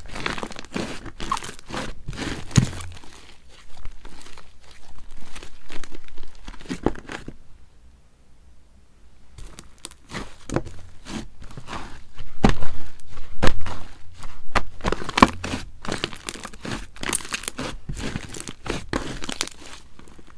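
Slime being squished, stretched and folded by hand, making dense runs of quick clicks and crackles, with a brief lull about a third of the way through.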